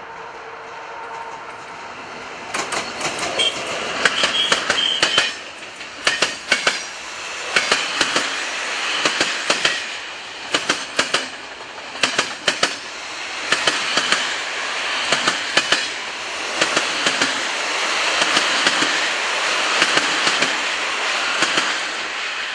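Train passing close by: a steady rumble with the wheels clacking over rail joints in quick groups, about one group every one and a half seconds, and a brief high wheel squeal a few seconds in.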